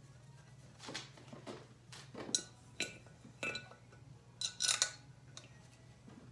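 A series of sharp metal clinks and clatters from hand tools being handled, the loudest cluster a little past the middle, over a steady low hum.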